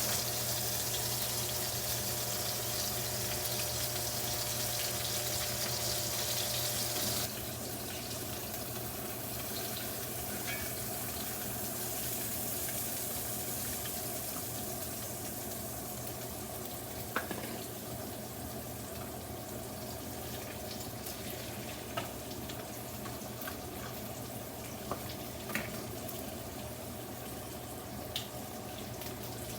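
Pork chops sizzling in butter in a skillet, a steady hiss that drops noticeably in loudness about seven seconds in, over a steady low hum. A few light clicks, like a utensil against the pan, come in the second half.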